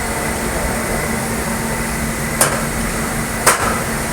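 Two short, sharp clicks about a second apart over a steady hum of room or machine noise.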